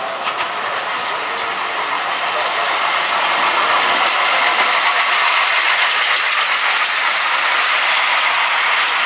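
Ride-on miniature railway train running along the track: a steady rushing noise scattered with quick clicks of small wheels over the rail joints, growing slightly louder.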